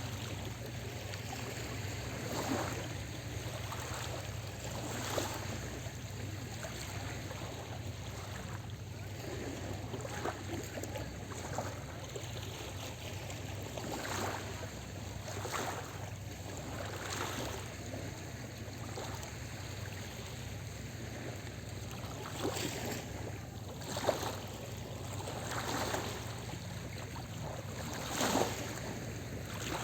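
Small sea waves lapping and washing against the shore, a splash every one to three seconds over a steady hiss of water, with a constant low hum underneath.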